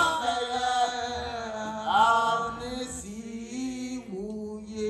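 Sustained church keyboard chords held under the sermon, with a voice chanting two short phrases over them, near the start and about two seconds in.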